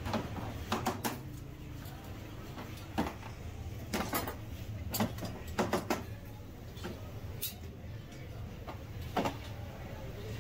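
Sharp clinks and knocks of a metal rod against the inside of a clay tandoor and the kettle in it, scattered irregularly over a steady low rumble.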